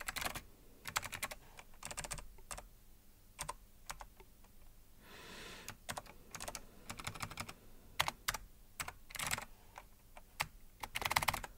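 Computer keyboard being typed on in short, irregular runs of key clicks. A brief soft rush of noise comes about halfway through.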